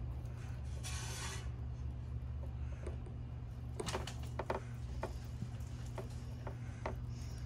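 Hands twisting bare headlight wire leads together: a brief rustle about a second in, then a string of small clicks and ticks from the wires and plastic connector, over a steady low hum.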